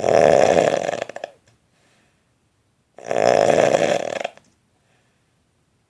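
A man snoring loudly: two long, fluttering snores about three seconds apart, each lasting about a second and a half.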